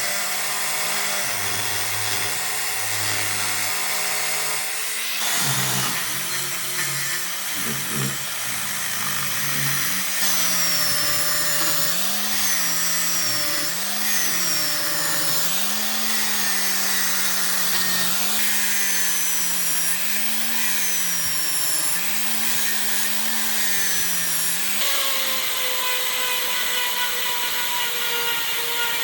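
An electric power tool's motor running with a steady whine, cutting or working wood. Through the middle its pitch repeatedly dips and recovers, about every two seconds, as the tool bogs under load with each pass. The sound changes abruptly twice.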